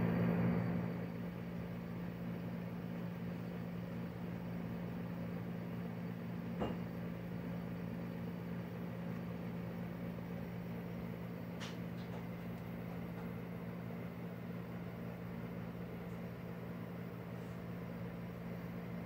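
Motorized rotating display turntable running with a steady low hum. A light tick comes about six and a half seconds in.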